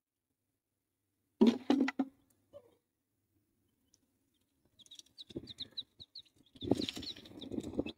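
Domestic chicks peeping, a run of short high cheeps about four or five a second starting about five seconds in, with rustling and scratching from their newspaper-lined box growing louder near the end. A few sharp clicks, the plastic bottle and cap being handled, come about a second and a half in.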